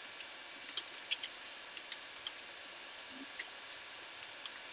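Computer keyboard typing: irregular, quick key clicks over a faint steady hiss.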